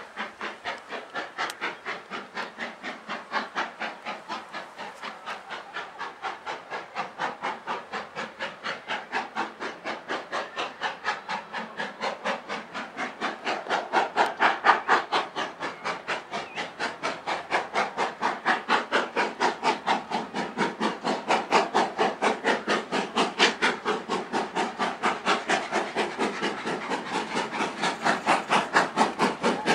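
GWR Manor class 4-6-0 steam locomotive No. 7827 'Lydham Manor' working a seven-coach train, its exhaust beating steadily at about three chuffs a second. The beats grow louder as it approaches.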